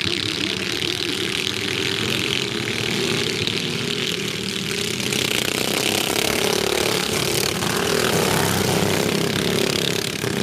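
A pack of racing ride-on lawn mowers running at full throttle as they pass close by, several small engines droning together, their pitches wavering as the pack goes by.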